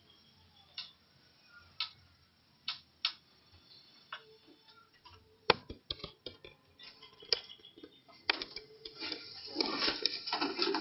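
Irregular light clicks and knocks, sparse at first, then coming thicker and louder in the last two seconds with a scuffling noise under them.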